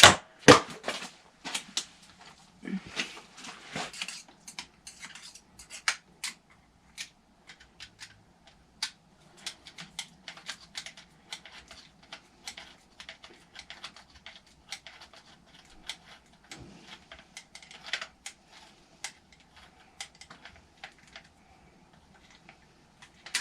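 Metal wrench clicking and clinking against small bolts while the engine mounting bolts of an RC truck are tightened. The clicks are scattered and irregular, and the loudest clanks come at the very start.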